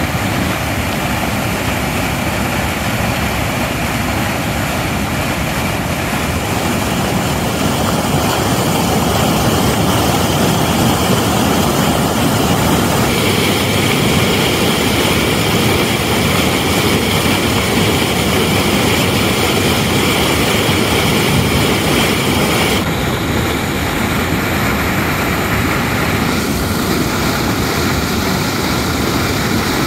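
Loud, steady rush of fast floodwater pouring over a concrete weir spillway and churning white in the pool at its foot.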